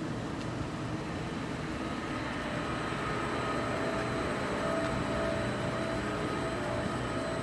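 Steady low rumble of outdoor background noise, with a faint steady hum joining about two and a half seconds in.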